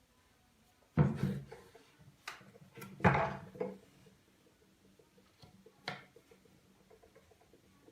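Wooden workshop parts being handled: two sharp knocks, about a second in and about three seconds in, with several lighter clicks and taps around them.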